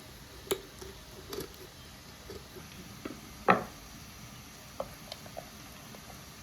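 Sparse, light knocks and clicks of hand work during outdoor cooking, about half a dozen in all, with one louder knock about three and a half seconds in.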